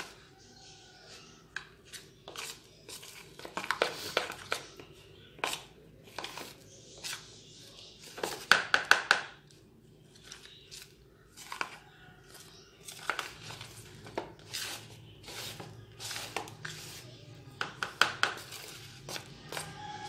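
A metal spoon scraping and clicking against a bowl as crumbly bird egg food (ground egg, seeds and oil) is stirred and mixed, in irregular strokes with a busier flurry about halfway through.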